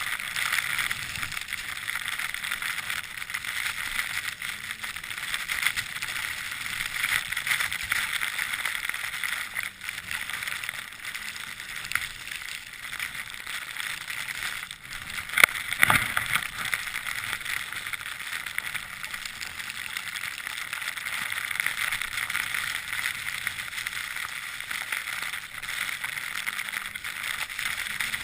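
Skis sliding and carving on snow: a steady scraping hiss, with one sharp knock about halfway through.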